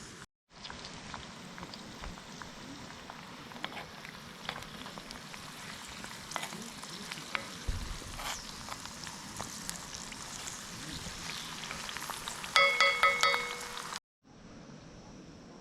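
Food sizzling in a hot pan, a steady hiss with scattered small crackles. Near the end comes a quick run of loud electronic beeps.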